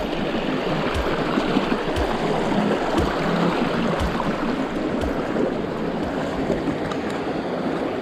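Mountain stream rushing over rocks in shallow rapids, a steady rush of water. Soft low thumps about once a second from footsteps on the stream-bed rocks.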